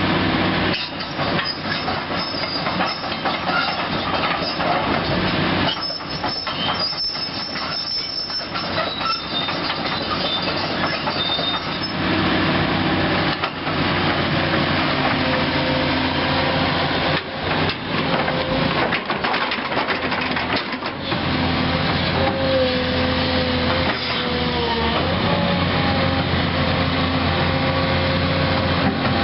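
Link-Belt 3400 Quantum excavator's Isuzu six-cylinder diesel running steadily while the machine works, with rattling and clanking of steel parts and a wavering squeal about two-thirds of the way through.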